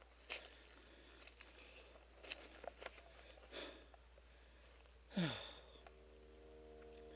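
Short sniffs and breaths from a tired airsoft player, with brush and twigs rustling now and then. About five seconds in comes a louder breath or sigh that drops in pitch, and a faint steady hum sets in after it.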